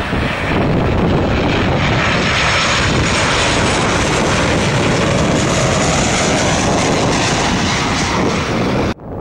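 Southwest Airlines Boeing 737 jet airliner flying low overhead on its landing approach. Its turbofan engines make loud, steady jet noise that cuts off suddenly near the end.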